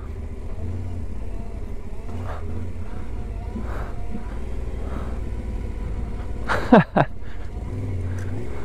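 Yamaha Ténéré 700's parallel-twin engine running steadily at low revs on a steep gravel descent. About seven seconds in, a brief voice-like sound from the rider, falling in pitch, is the loudest thing.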